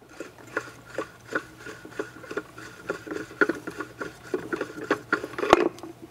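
Pool pump impeller being unscrewed by hand off the motor shaft, which is held by a wrench: a quick, irregular run of small clicks and scraping, with one louder click about five and a half seconds in.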